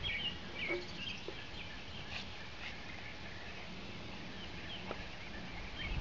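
Outdoor background noise with small birds chirping in short clusters of quick curved notes, mostly in the first second and again near the end, and a couple of faint soft knocks in between.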